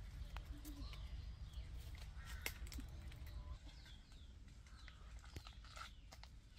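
Birds chirping and calling over a low steady rumble, with a few sharp clicks scattered through, the strongest about two and a half seconds in.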